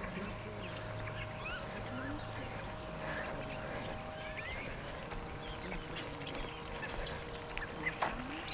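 Small birds chirping with short rising and falling notes, over the faint steady hum of a drone flying, whose pitch drops a step about halfway through.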